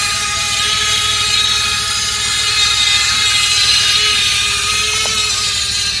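Electric gear motors of an RC toy excavator whining steadily as the boom and bucket move, the pitch drifting slightly as the load changes.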